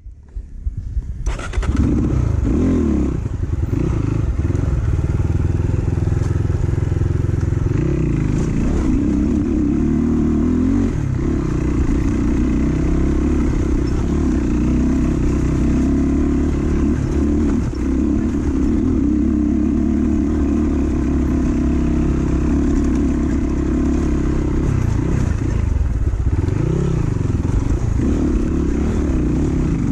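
Dirt bike engine running under way off-road, cutting in about a second in, its revs rising and falling as the rider works the throttle.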